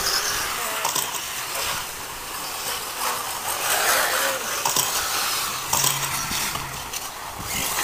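Electric off-road RC buggies running on the track: a steady high hiss of motors and tyres, with scattered clicks and clattering knocks from the cars.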